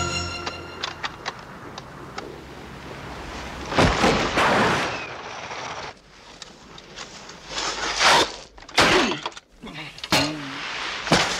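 Film sound effects of landings and a crash in snow: several heavy thuds and crashes with rushes of snow spray. The loudest come about four seconds in, around eight to nine seconds in, and just before the end. Music dies away at the start.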